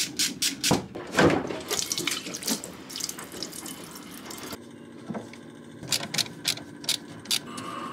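Water pouring from a braided plastic hose and splashing into a stainless steel pot, with sharp clicks and knocks from the hoses and fittings being handled.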